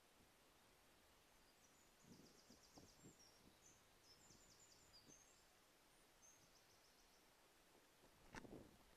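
Very faint outdoor quiet with distant bird song, high rapid trills and chirps, over a low background hiss. A few soft low thumps come about two to three seconds in, and a sharper click comes near the end.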